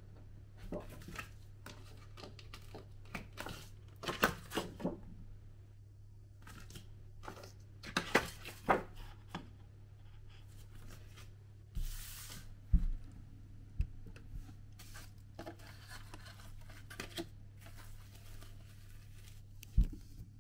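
Paper leaflets rustling and crackling in the hand as they are held up and leafed through, in short irregular bursts, with a few light knocks, over a steady low room hum.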